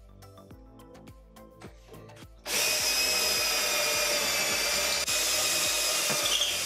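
Ridgid cordless drill boring a pocket hole through a pocket-hole jig into wood. It starts about two and a half seconds in as a loud, steady high whine of the motor and the bit cutting, and runs on without a break.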